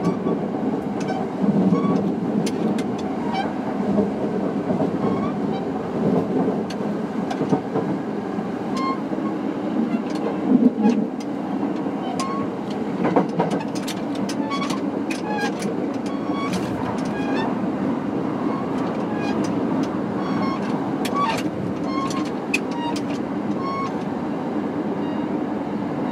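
Steady running noise aboard a Kintetsu 3220 series electric train, a constant rumble with scattered sharp clicks.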